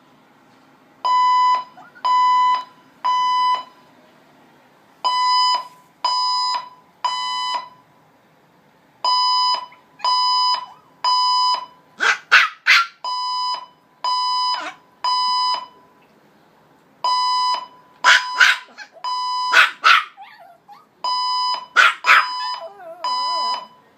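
Fire alarm beeping in repeated groups of three, a new group about every four seconds. From about halfway in, a Pomeranian howls along over several of the beep groups.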